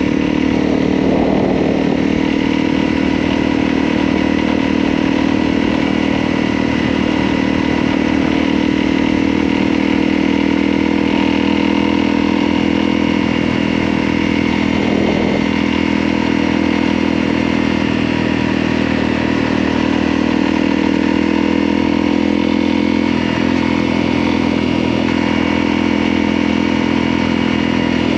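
Motorcycle engine running at a steady, unchanging pitch, with a slight shift in tone about 23 seconds in.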